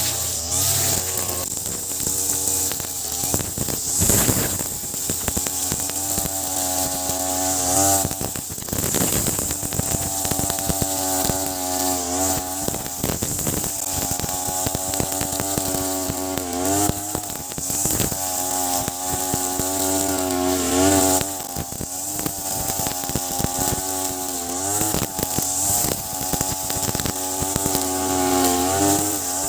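Ogawa BG330 33cc two-stroke brush cutter running at high revs, its nylon trimmer line slashing through grass. The engine pitch dips and climbs back several times over the stretch, with short crackling strikes from the line.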